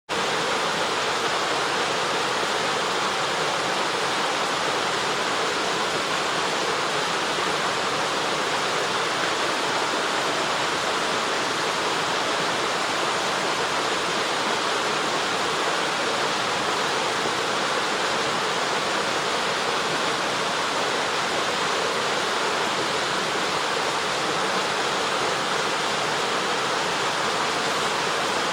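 Ōkama no Ōtaki waterfall: a steady, loud rush of water falling into its deep plunge pool, cutting in suddenly from silence at the start.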